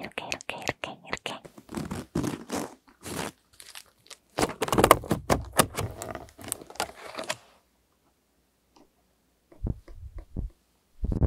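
A quick run of clicks and taps. Then a loud stretch of rustling and clacking as a wooden-ribbed paper folding fan is handled. Near the end come a few short, low whooshes of air as the fan is waved at the microphone.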